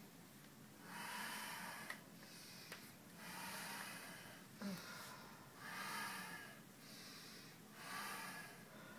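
A person breathing softly and steadily close to the microphone, four breaths about two to two and a half seconds apart.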